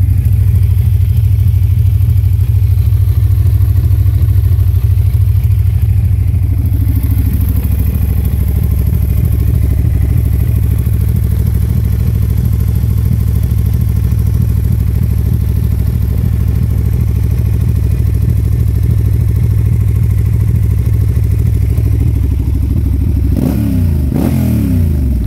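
1996 Yamaha TRX850's five-valve DOHC parallel-twin engine idling steadily, then revved briefly a couple of times near the end.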